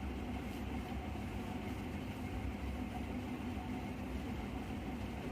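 Steady low background rumble with a faint hiss, even throughout, with no cracks or clicks.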